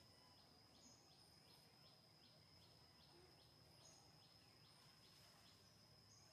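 Near silence: faint forest ambience, with a steady high-pitched tone and a faint chirp that repeats about three times a second.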